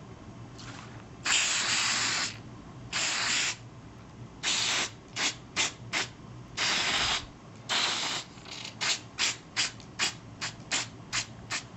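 Aerosol can of silicone spray lubricant hissing in bursts: a few of about a second each, then a quick run of short puffs.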